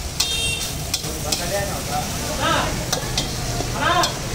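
Metal spatulas scraping and clanking against a large steel wok as fried rice is tossed and stirred, with irregular metallic strokes over a steady sizzle.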